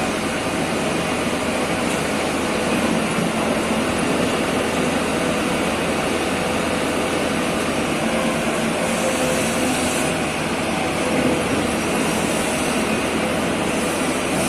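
Sany SY245C excavator's diesel engine running steadily.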